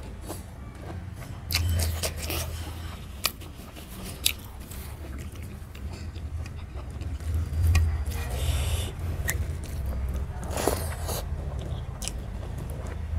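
Eating with the hand: fingers mixing and scraping rice and chicken curry on a steel plate, with chewing and other mouth sounds. Two sharp clicks come about three and four seconds in.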